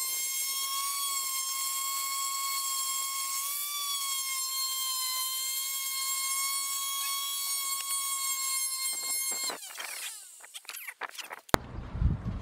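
Electric orbital sander running with a steady high whine while sanding pallet wood. It switches off about nine and a half seconds in, followed by a few scrapes and knocks, and a louder low rumble near the end.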